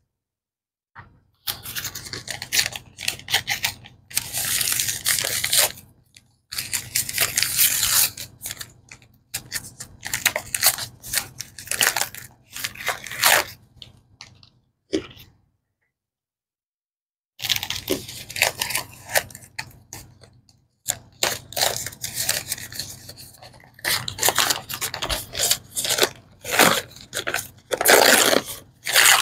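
Paper and plastic wrapping crinkling, rustling and tearing as it is handled and pulled off a block of cornstarch. The sound comes in bursts with short silent breaks and one pause of about three seconds in the middle.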